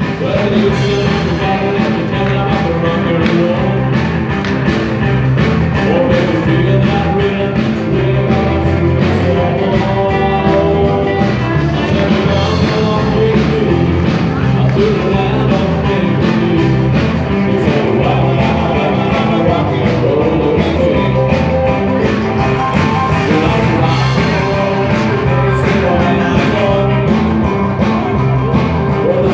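Live band playing a rock 'n' roll number, with singing over a steady beat.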